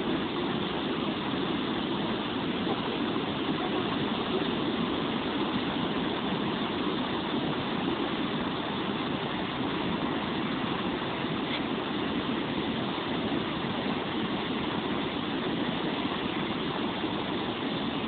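A river in spate: muddy floodwater rushing steadily over a submerged road crossing, a constant, unbroken rush of turbulent water.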